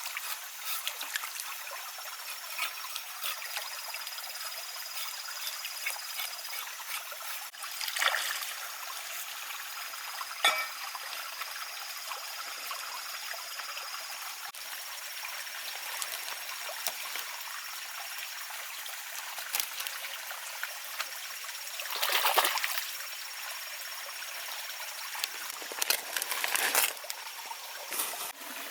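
Water trickling steadily, like a small stream, with a few brief louder surges of noise.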